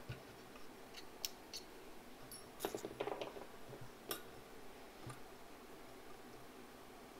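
Small metallic clicks and light clatter of a Phoenix Arms HP22A pistol frame and its small parts being handled during reassembly, with a busier run of clicks and brief ringing about two and a half to three and a half seconds in.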